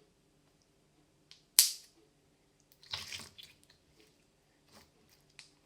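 Mixed slime being squeezed and pulled in the hands, giving wet pops and snaps: one sharp snap about one and a half seconds in, then a crackly run of small pops around three seconds, and a few faint ticks near the end.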